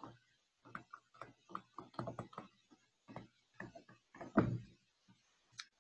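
Stylus tapping and scratching on a tablet screen during handwriting: a quick, irregular run of short clicks and ticks, with the loudest about four and a half seconds in.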